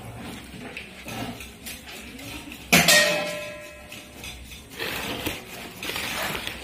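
Packaging being handled: a plastic-and-paper pouch and packets in a box rustle and crinkle. About three seconds in, a sudden bright ringing chime sounds and fades over about a second.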